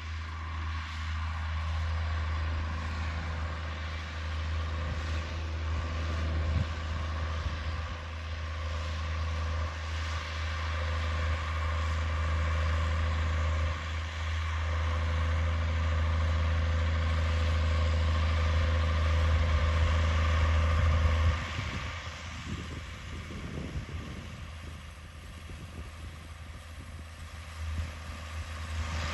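Schlüter E7800TV tractor engine running steadily while ploughing, with a strong deep drone. About two-thirds of the way through the drone falls away, and the engine sound turns quieter and more uneven.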